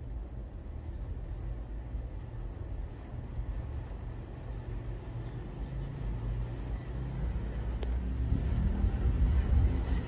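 Panasonic CS-S10NKP inverter split air conditioner's indoor unit blowing air through its louvers: a steady low rush of airflow. It grows louder over the last few seconds, with air blowing onto the microphone close to the outlet.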